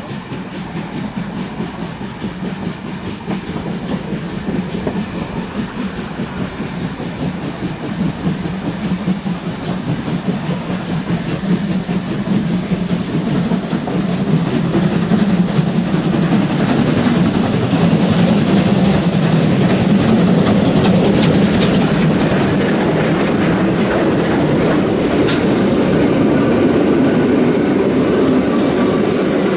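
Two steam trains running side by side: steam locomotive exhaust and the clatter of carriage wheels on the rails, growing steadily louder over the first half as the parallel train's class 52 locomotive, 52 7596, draws alongside on the next track, then holding loud.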